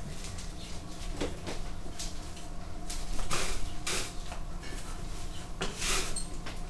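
A broom sweeping a tiled floor: a handful of short swishes, the loudest about three and a half and six seconds in.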